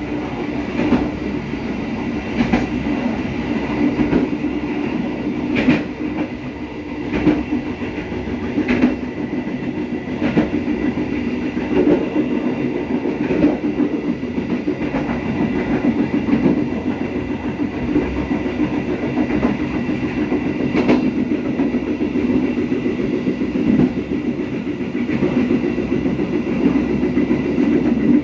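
Passenger carriage of the Serayu train running along the track: a steady rumble from wheels and rails, with a sharp clack about every second and a half as the wheels cross rail joints.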